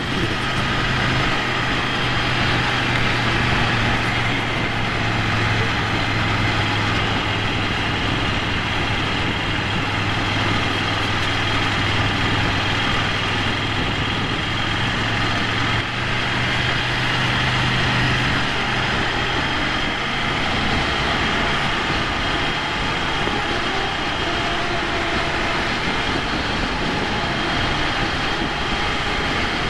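Ducati Monster 797's air-cooled V-twin running steadily on the move, under constant wind noise on the microphone. The low engine note drops away about twenty seconds in.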